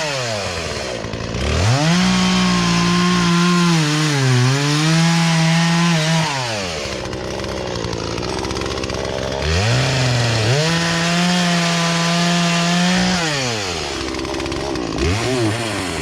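Poulan Pro two-stroke chainsaw revving from idle to full throttle and back. It is held at high revs for a few seconds twice, with a brief dip in the first run, then a short blip near the end. The carburetor's low and high mixture screws have just been adjusted, and it now runs right.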